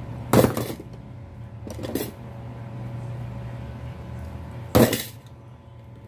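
Metal clinks of a hand tool knocking against the steel shaft and ball bearing of a ceiling fan motor: three sharp clinks with a short ring, loud about half a second in, fainter at about two seconds, and loud again just before five seconds.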